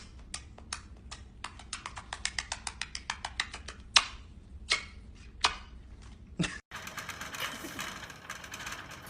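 An irregular series of sharp clicks, spaced out at first, then coming faster, with a few louder single clicks after. About two-thirds of the way in, an abrupt cut leads to a soft, even hiss.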